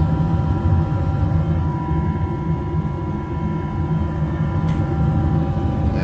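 Propane gas furnace running just after ignition: the burners firing with a steady low rumble, and the draft inducer motor's steady hum over it.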